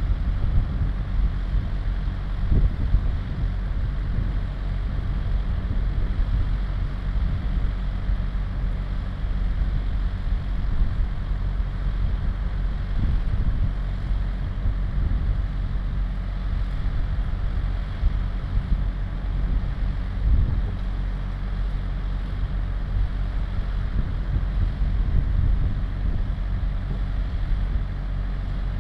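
A vehicle engine idling steadily, with wind buffeting the microphone in irregular low gusts.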